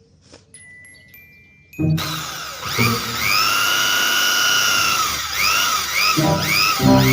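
A drill's motor whining. It spins up about two seconds in, runs steadily for about three seconds, then is triggered in several short spurts before cutting off. Before it, a few short electronic beeps step up in pitch.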